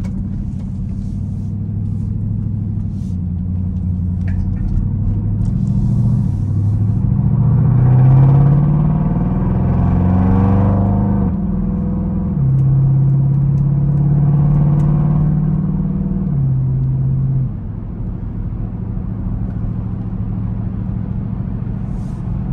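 Dodge Durango SRT 392's 6.4-litre HEMI V8 pulling away under throttle, heard from inside the cabin. The engine note climbs and drops in steps as it shifts up through the gears, loudest about eight seconds in. It then holds a steady drone for a few seconds and eases down to a lower, even note after about seventeen seconds.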